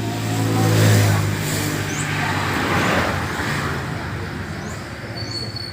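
A motor vehicle passes close by. Its engine hum and tyre noise swell to a peak about a second in, then fade away over the next few seconds.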